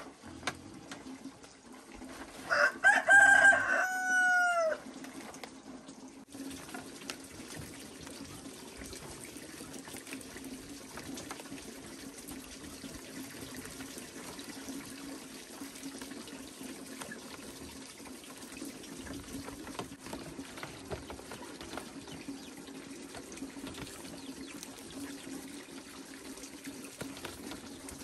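A rooster crows once, a couple of seconds in: one long call that falls in pitch at its end. A steady rush of running water continues behind.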